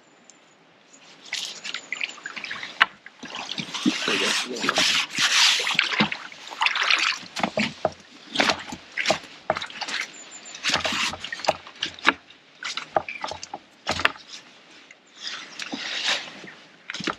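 Water splashing as a hooked fish is drawn into a landing net and lifted out of the lake, followed by irregular rustles and knocks of the wet net and tackle as the fish is handled.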